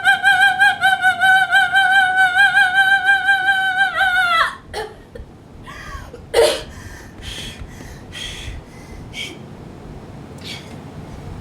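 A woman's voice holding a high, wavering note for about four and a half seconds, sliding down as it breaks off. A few short coughs and laughs follow, the loudest about six and a half seconds in.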